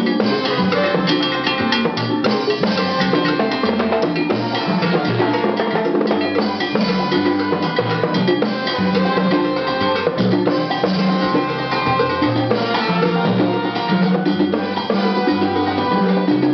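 Live salsa band playing, with congas and other percussion driving a steady groove under sustained pitched lines.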